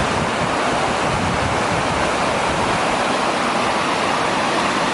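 Waterfall close by, falling water making a loud, steady rushing hiss.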